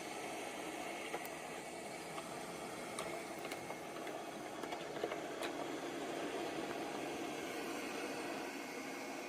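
Light 'N' Easy robot vacuum running, a steady motor and suction hum, with a few small clicks and ticks, and the hum swelling slightly past the middle.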